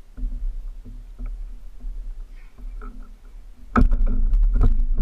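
Low rumble of wind and water on a kayak-mounted camera, with faint knocks. From near four seconds in, a sudden loud run of sharp knocks and clicks sets in over the rumble, as the fishing rod is loaded by a hooked fish.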